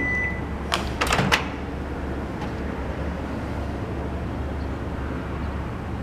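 GE countertop microwave: the end of its high beep just as it finishes, then its door latch releasing and the door swinging open about a second in, a few sharp clicks in quick succession. A steady low hum runs underneath.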